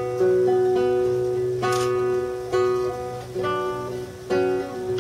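Nylon-string classical guitar played solo, chords struck about once a second and left to ring, one struck sharper and brighter a little under two seconds in.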